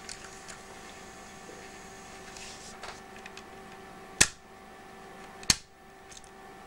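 Panasonic XBS Walkman-style cassette player running a test with its lid open, its small motor giving a faint steady hum. Two sharp clicks come about four and five and a half seconds in.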